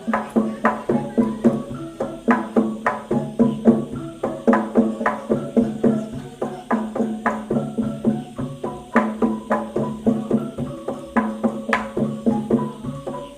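Traditional Banyuwangi percussion music: fast, rhythmic struck pitched notes with drum strokes over a steady low tone.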